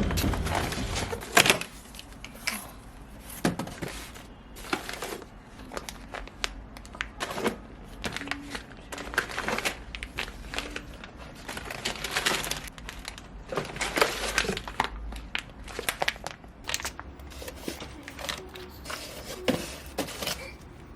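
Irregular handling noise: crinkling with scattered sharp clicks and knocks, the loudest near the start and about two seconds in.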